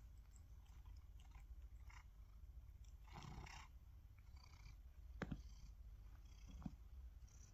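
Tabby cat purring quietly and steadily, with a brief rustle about three seconds in and two sharp clicks near the end.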